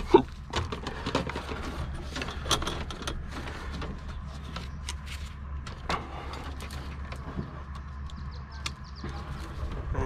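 Gloved hands handling drop cable in a plastic utility box make scattered small clicks and rustles, with a sharper snip about halfway through as cutters close. A steady low rumble underlies it all.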